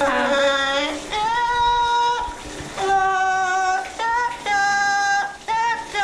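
Yellow-naped Amazon parrot singing opera-style: a string of long held notes, about one a second, the first sliding down into place.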